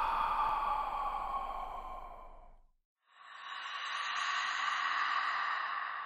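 Slow, drawn-out ghostly breathing sound effect: one long breath fades away, there is a brief silence about two and a half seconds in, and then the next breath swells in and slowly trails off.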